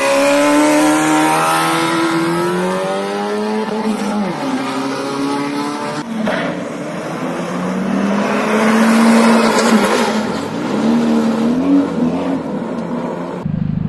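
A car engine accelerating hard on a drag strip. Its note climbs in pitch and falls back at the gear changes, several times over.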